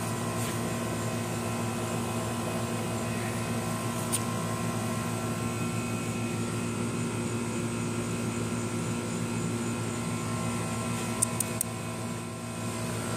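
Steady machine hum made of several level tones, with a few light clicks about four seconds in and again near the end.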